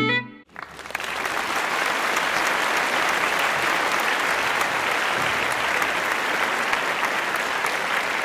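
Audience applauding: many hands clapping, building up within the first second or so and then holding steady.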